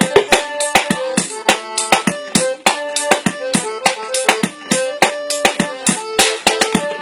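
Tin-can drum kit played in a fast, busy rhythm of sharp metallic hits, several a second, against a melody of held pitched notes.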